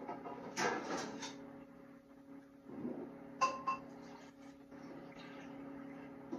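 Kitchenware being handled off camera: a few knocks and clatters in the first second, then a sharp clink that rings briefly about three and a half seconds in, over a steady low hum.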